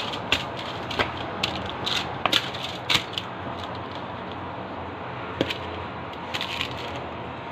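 Hands mixing raw chicken thighs and cherry tomatoes in a foil baking tray: irregular crinkles and clicks from the tray with wet squishing of the meat, busiest in the first few seconds and thinning out after.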